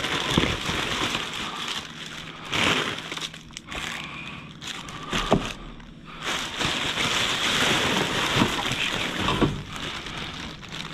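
Rummaging through bin contents: plastic bags and snack packets rustling and crinkling, with occasional knocks.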